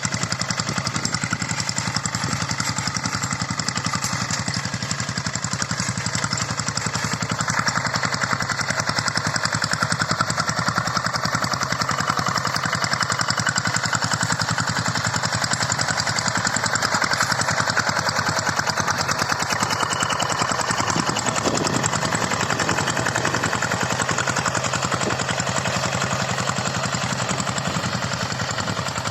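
Single-cylinder diesel engine of a two-wheel hand tractor running steadily while plowing, with a fast, even firing beat.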